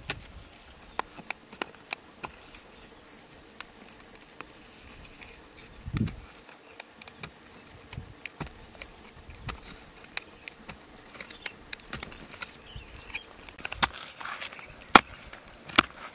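Small hand pick digging into dry, stony soil: scattered sharp clicks and knocks of the metal head on grit and pebbles as dirt is scraped and loosened, busiest near the end, with one low thump about six seconds in.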